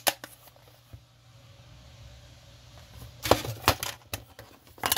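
Hard clicks and taps of small objects being handled: one at the start, then a quick run of sharp clicks about three seconds in and a few more near the end, over a faint low hum.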